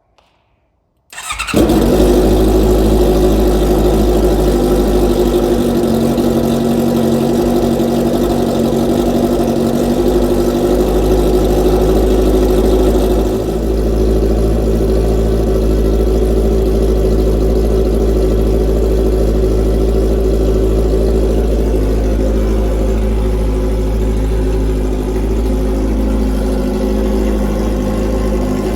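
Honda CB650F inline-four engine on a straight-pipe exhaust with no silencer, starting about a second in and then idling steadily and loud. The sound turns slightly quieter and less bright about thirteen seconds in.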